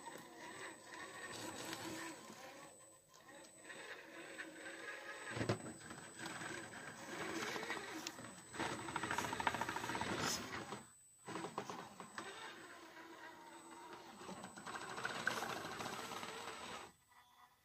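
Element RC Trailrunner 1/10 crawler's electric motor and gearbox whining as it crawls, rising and falling with the throttle, with a knock of the chassis or tyres on the wooden planks about five seconds in. The drive cuts out briefly near eleven seconds and again near the end.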